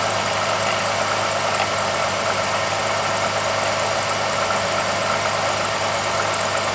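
A 2005 Jeep Liberty's 3.7-litre V6 idling steadily, with a grindy, rattly noise from the alternator pulley: the alternator's bearings are bad.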